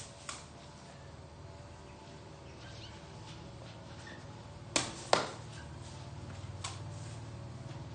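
Woven sepak takraw ball being kicked: two sharp, hollow hits about half a second apart around the middle, with fainter taps just after the start and about a second and a half later.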